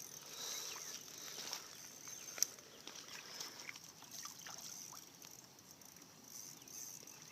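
Quiet riverside outdoor ambience: a faint steady high hiss with a few soft clicks, one sharper click about two and a half seconds in.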